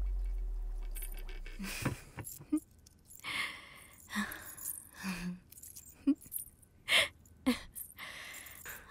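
A deep bass tone from the film score fades out over the first second or so. Then a woman giggles shyly in a string of short, breathy bursts.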